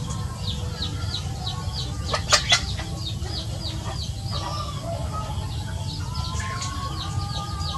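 A flock of young chickens foraging, with soft clucking and a run of short, high, falling peeps about four a second that stops for about two seconds in the middle. Two brief sharp bursts, the loudest sounds, come a little over two seconds in.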